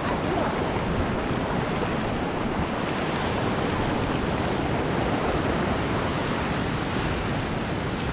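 Small surf waves washing up a sandy beach in a steady rush, with wind buffeting the microphone.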